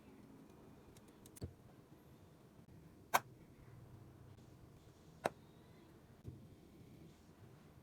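Four sharp clicks or taps, a second or two apart, the second and third much louder than the others, from small tools and phone parts being handled on a repair bench.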